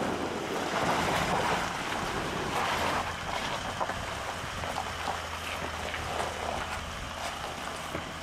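A four-wheel-drive vehicle's engine running under load as it climbs a rocky slope, with a steady low hum and a noisy rush of wind over the microphone that is louder for the first three seconds or so.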